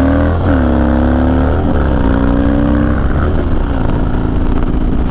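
Harley-Davidson Dyna's V-twin engine running on the move, its pitch lifting and settling a few times as the throttle is worked, over a steady low rumble.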